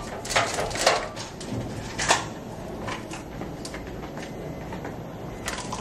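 Plastic lash packages clicking and clacking as they are handled and slotted into the rows of an open vending machine by hand: a few sharp clacks in the first two seconds, then lighter taps, over steady room noise.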